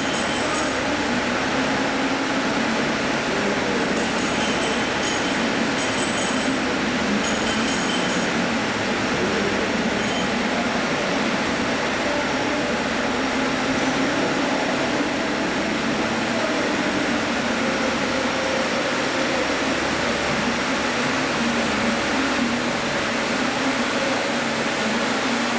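CNC internal gear teeth generating machine running, a steady mechanical noise with brief high-pitched chirps a few seconds in.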